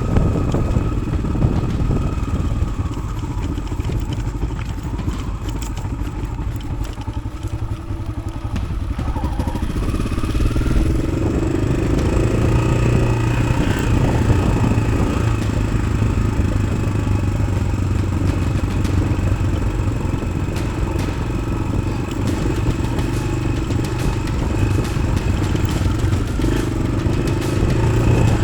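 Yamaha XT600's single-cylinder four-stroke engine, fitted with an Arrow exhaust, running steadily under load as the bike is ridden off-road, its revs picking up a little about ten seconds in.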